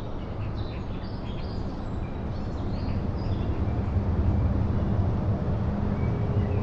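Outdoor ambience: small birds give short, high chirps and calls, mostly in the first half. Underneath runs a low, steady rumble with a hum that grows a little louder in the second half.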